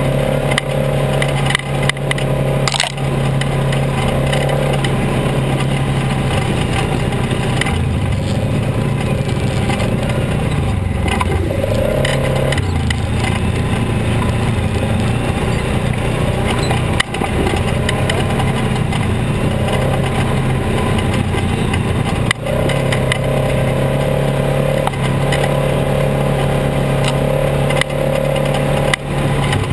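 Polaris RZR XP 900 side-by-side's parallel-twin engine running while driving over a rough gravel trail. The engine speed drops a few seconds in and picks up again near the end. Tyres crunch on the gravel, with occasional sharp knocks as the machine jolts over rocks.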